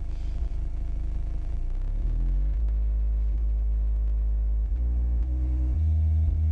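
Low bass test tone with a steady hum beneath it, rising in pitch about two seconds in and shifting again in steps near the end, played during an amplifier power (dyno) test.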